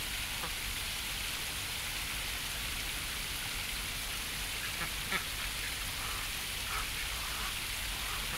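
Shallow stream running steadily, with a few short quacks from a small flock of domestic ducks swimming in it, the clearest about five seconds in.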